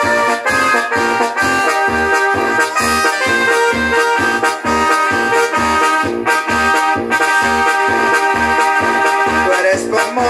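Instrumental dance music, played live by a keyboard band, with accordion and brass parts over a steady bass beat of about two beats a second.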